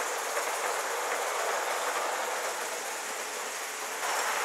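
Gauge 1 live-steam model tank locomotive running with a train of coaches: a steady rushing noise of the engine and wheels on the metal track, rising slightly about four seconds in.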